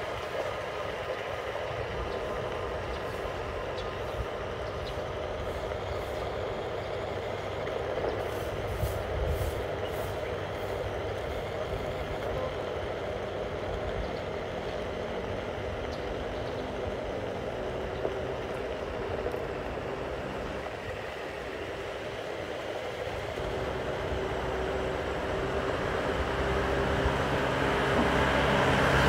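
Onewheel XR electric skateboard rolling over asphalt at a steady speed: a steady hum from its hub motor over tyre and road rumble. The rumble grows louder over the last few seconds.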